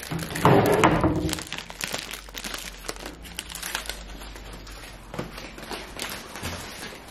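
Crinkling and rustling of a sack of potatoes being handled and carried, loudest for the first second or so, then lighter rustling with a few small knocks.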